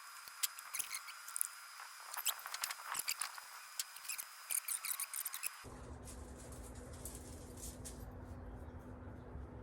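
Light, irregular clicks and taps for about five and a half seconds, then an abrupt change to a steady low hum with a faint steady tone.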